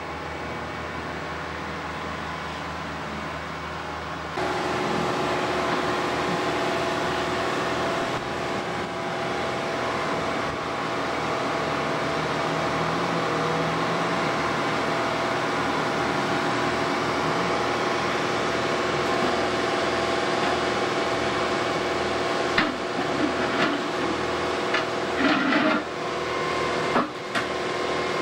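Wheeled excavator tearing up old railway track with its grab: the machine runs under load while rails and sleepers scrape and grind. A steady howl comes in about four seconds in, and several sharp knocks and clanks follow near the end.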